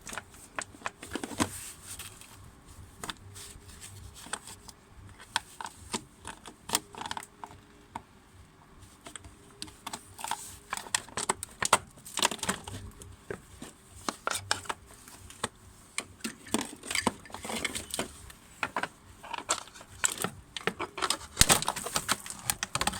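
Irregular clicks, knocks and rattles of hands and tools working on plastic coolant parts and clips, with a louder flurry near the end.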